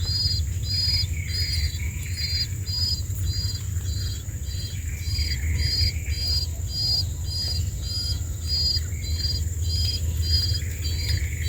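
A bird's short high chirps, repeated evenly about twice a second, over a steady high-pitched whine and a low rumble.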